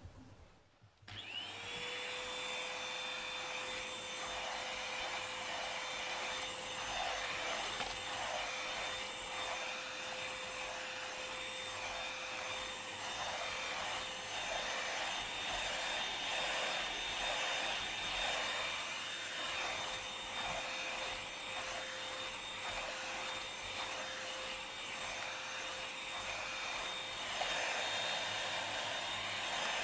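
Handheld vacuum cleaner switched on about a second in, then running steadily: a rush of air with a high motor whine over it.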